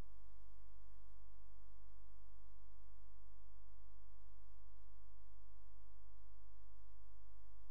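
Steady low electrical hum with many evenly spaced overtones, unchanging, with no other sound over it.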